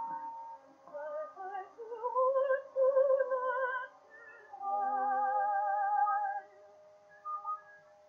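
Contralto singing a French romance with a wide vibrato, with orchestral accompaniment, played from an acoustically recorded 1908 Gramophone 78 rpm disc. The voice ends on a long held note about six seconds in, and then only soft, short orchestral notes are left.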